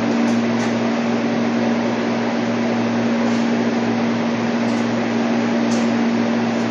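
A motor running steadily, a continuous mechanical drone with a low hum that does not change in pitch or level.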